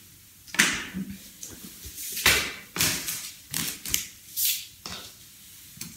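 Handling noises on a kitchen worktop: a series of short rustles and scrapes as silicone oven mitts are taken off and set down and a thin plastic cutting mat is laid out on a pastry mat.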